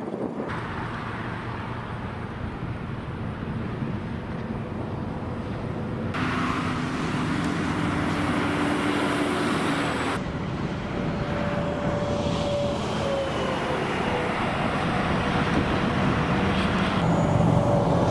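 Steady road traffic noise with vehicles going by, their tones falling in pitch as they pass. The sound jumps abruptly louder or quieter several times.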